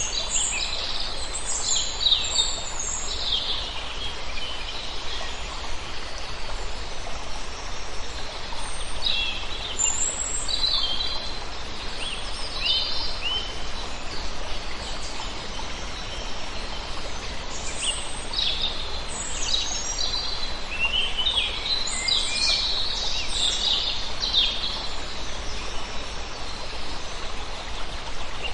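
Wild birds singing in scattered bursts of high chirps and trills over a steady, even background hiss.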